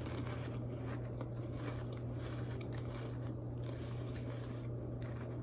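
Quiet chewing of cheese and crackers close to the microphone: faint crunches and mouth clicks over a steady low hum.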